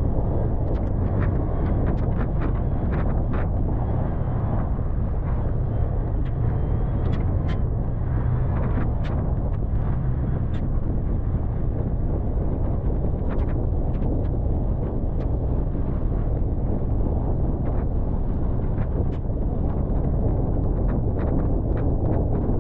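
Toyota FJ Cruiser's 4.0-litre V6 and tyres with a steady low rumble as it drives slowly over a dirt trail, with scattered sharp clicks and ticks throughout.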